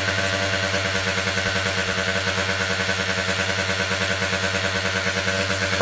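Piaggio Zip SP scooter's two-stroke engine idling steadily, at an even pitch, on its first run after restoration.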